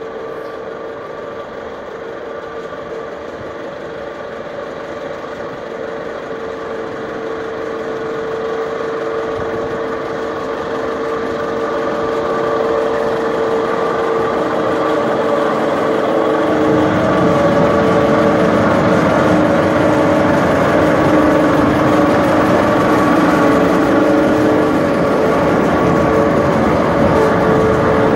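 Small four-wheeled diesel shunting locomotive approaching at low speed, its engine running at a steady note that grows louder as it nears, loudest and fullest in the last third.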